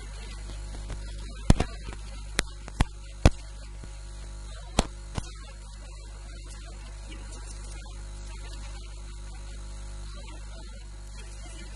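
Steady electrical mains hum with its overtones, broken in the first half by a handful of sharp clicks.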